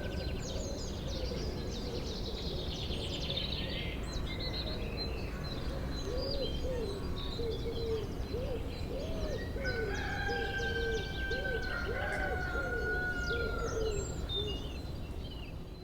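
Several songbirds singing and chirping, with a run of low, evenly repeated cooing calls about halfway through and light wind rumble underneath.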